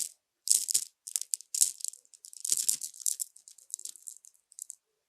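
Pencil writing on paper: a run of short scratchy strokes, some quick and some drawn out, that stop a little before the end.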